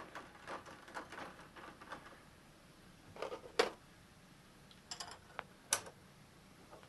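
Sparse light clicks and sharp taps of metal tooling being handled at a milling machine, with the clearest knocks a little past three and a half seconds, at about five seconds and just before six seconds.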